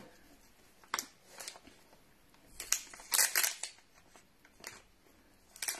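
Soft plastic pack of wet wipes crinkling and rustling in short, scattered strokes as fingers work its flip-top lid and seal open.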